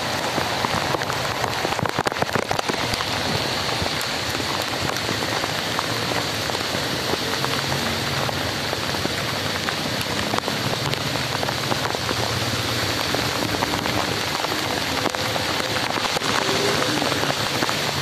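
Heavy downpour hissing steadily, with close raindrops tapping sharply, thickest in the first few seconds.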